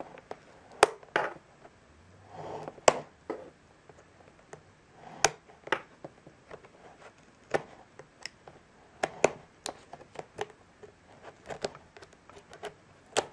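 Small metal blade cutting along the flap of a cardboard box: a string of irregular sharp clicks and taps as the blade catches and snaps through the cardboard and tape, with a short scraping rasp about two and a half seconds in.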